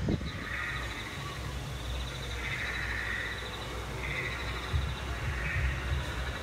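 Outdoor frog and insect chorus: a steady high insect trill with frog-like calls repeating every second or two, over a low rumble.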